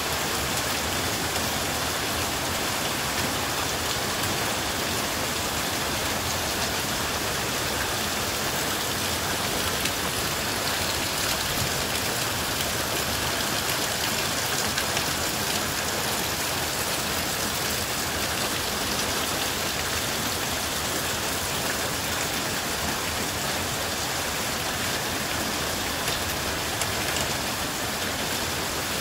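Heavy rain, about an inch an hour, falling steadily onto standing and running water over flooded ground: a dense, even hiss of countless drops with no let-up.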